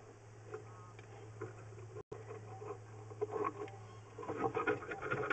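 Drain inspection camera head and push rod scraping and rubbing inside a stormwater drain against a blockage it cannot get past, over a steady low hum. The scraping grows louder and busier about four seconds in.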